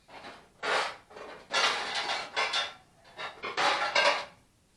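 Cookware, pots, pans and dishes, clanking and clattering as they are shifted about in a lower kitchen cabinet while a casserole dish is dug out. It is a run of separate knocks and clatters, the loudest in the middle and near the end.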